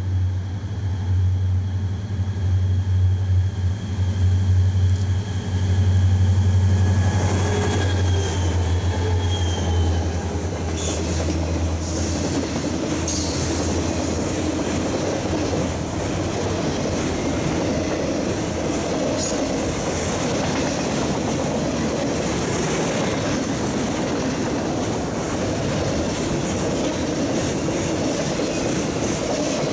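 A pair of EMD SD40-2 diesel locomotives, each with a 16-cylinder two-stroke engine, passes close by with a loud, deep engine drone. After about twelve seconds the drone gives way to the steady rumble and clatter of autorack freight cars rolling past, with a few brief high wheel squeals.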